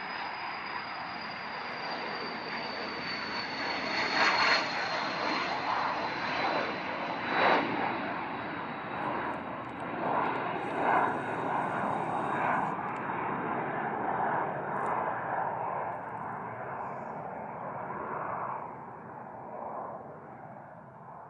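Cessna Citation CJ2 business jet taking off under full power from its two Williams FJ44 turbofans. A high whine slowly falls in pitch over a broad roar, with two sharp cracks in the roar about four and seven and a half seconds in. The sound fades as the jet climbs away.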